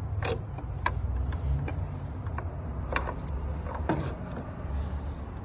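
Black iron gate latch hardware clicking and clinking as a hook-and-eye latch is unhooked and a gate latch is lifted: a series of sharp metal clicks, the loudest about a second in, at three seconds and at four seconds, over a steady low rumble.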